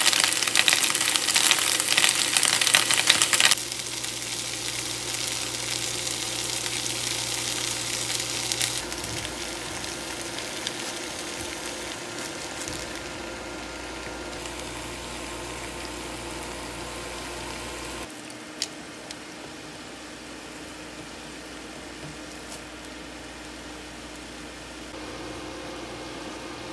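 Napa cabbage and then beef tripe with green onion kimchi frying in a non-stick pan on an induction hob. The sizzle is loud for the first few seconds, then settles to a softer frying hiss over a steady low hum, with a single sharp click about two-thirds of the way through.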